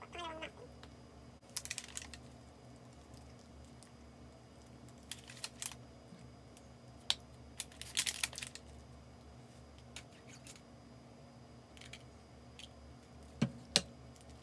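Clear plastic clamshell food container crinkling and clicking in short, scattered bursts as it is opened and handled. Two sharp knocks near the end, the loudest sounds here.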